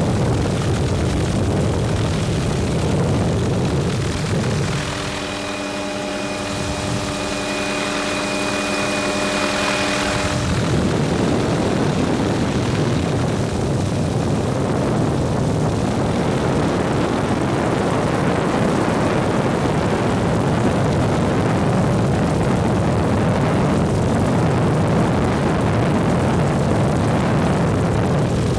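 Tour helicopter in flight, its engine and rotor noise heard from inside the cabin as a loud, steady rush. Between about five and ten seconds in, a steadier humming note with a thin high whine briefly takes over, then the broad rotor noise returns.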